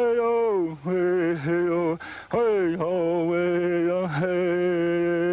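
An elderly Native American man chanting an unaccompanied song. His solo voice holds long notes, each phrase opening with a downward slide in pitch, with short breaks between phrases about one, two and four seconds in.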